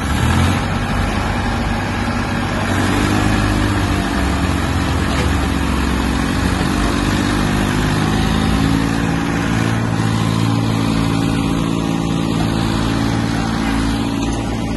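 Diesel tractor engines working hard under load as a Massey Ferguson 241 tows a stuck New Holland tractor free. The engine note shifts a couple of times.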